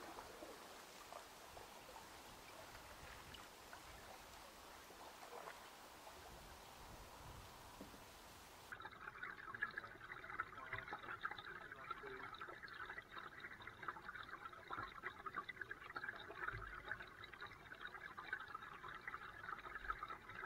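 Canoe being paddled on a river: water trickling and splashing faintly around the hull and paddle, a continuous crackly fizz, starting abruptly about nine seconds in. Before that, only a faint steady hiss.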